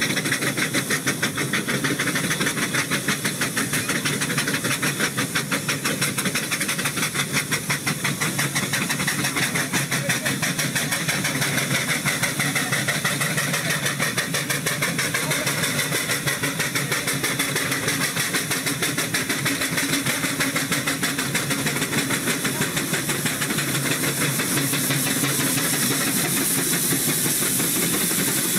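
Burrell steam traction engine on the move, its exhaust chuffing in a fast, even beat over a steady hiss of steam.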